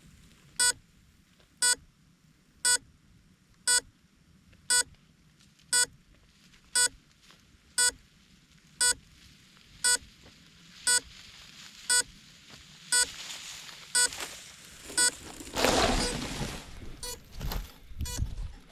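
Short, sharp electronic beep repeating about once a second, typical of an FPV quadcopter's beeper. A rustling noise builds from about ten seconds in, with a loud rustling burst a few seconds before the end.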